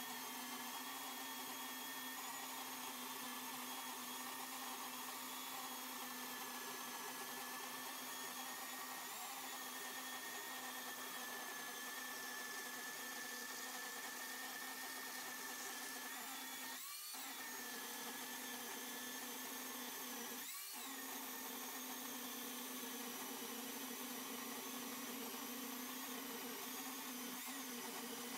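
Electric chainsaw running under load in a homemade chainsaw mill, ripping lengthwise through a log with a steady high whine. Twice, past the middle, the motor pitch sags briefly as the cut loads it, then recovers.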